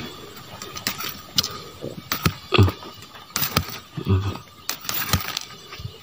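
A machete chopping and scraping into soil and dry leaf litter at the base of a plant stem: irregular knocks and crunches, two or three a second.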